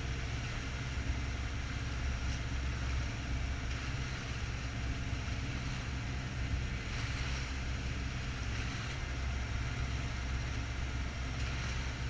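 A dive boat's engine running steadily while under way, with wind and water rushing past.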